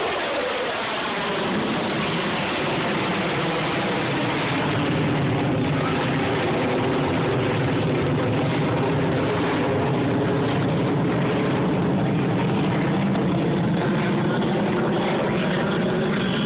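F-22 Raptor's twin F119 turbofan engines, a loud steady jet noise as the fighter flies its demonstration. The pitch drops in the first second as it passes.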